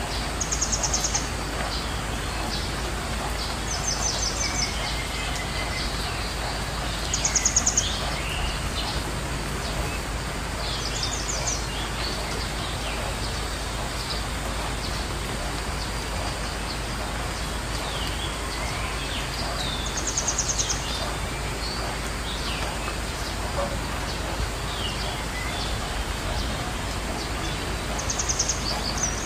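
Songbirds calling: a very high, rapid trilled call of about a second comes six times, every few seconds, with scattered lower chirps between, over a steady background hiss.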